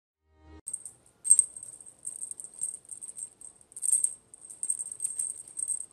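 A small jingle-bell ball toy jingling in quick, irregular bursts as a kitten bats and paws at it, starting about half a second in.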